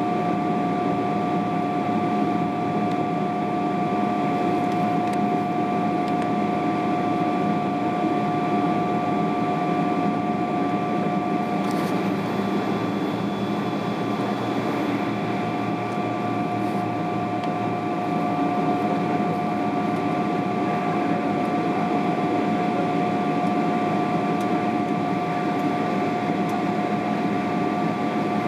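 Steady cabin noise inside a Boeing 777-300ER: the GE90-115B turbofans running at an even power, a broad rumble with two steady whining tones over it.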